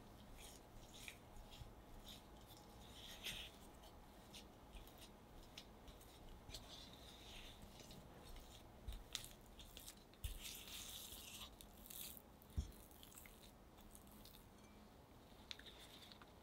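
Silicone spatula scraping and pressing soft butter cookie dough against the sides of a glass bowl: faint, irregular scrapes and light clicks, with a soft knock near the end of the mixing.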